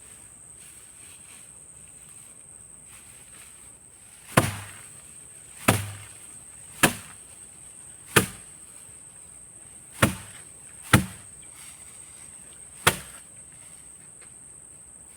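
Seven sharp chopping strikes, one every second or two, starting about four seconds in, over a steady high whine.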